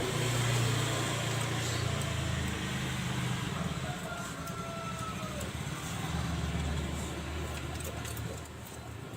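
Low, steady rumble of a motor vehicle's engine running nearby, swelling and easing, with a few faint gliding calls in the middle.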